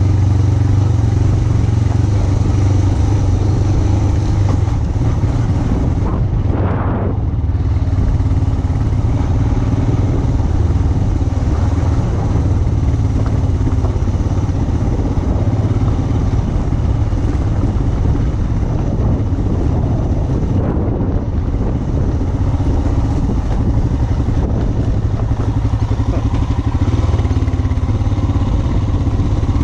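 Motorcycle engine running steadily as the bike is ridden off-road, with a brief swell about seven seconds in.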